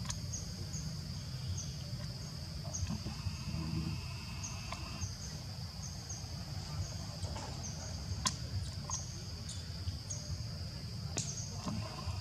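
Outdoor insect chorus: a steady high-pitched drone with short chirps repeating about twice a second, over a low rumble. Two sharp clicks stand out, one past the middle and one near the end.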